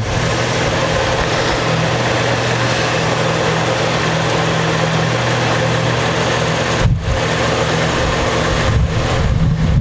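Steady mechanical hum with a loud hiss over it, like a motor or fan running, broken briefly about seven seconds in.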